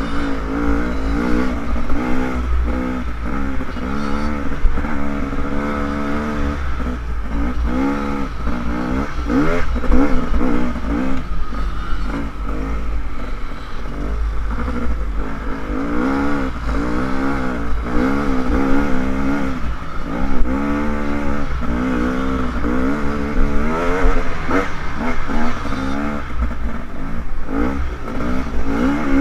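Dirt bike engine revving up and down over and over as the rider works the throttle and gears on a trail, with a steady low rumble of wind on the helmet microphone.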